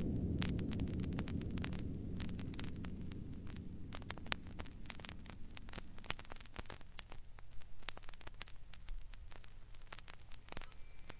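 A low electronic space-ship rumble from a sound-effects record fades away slowly, with vinyl surface crackle clicking throughout. The clicks stand out more as the rumble dies, and a faint high tone comes in near the end.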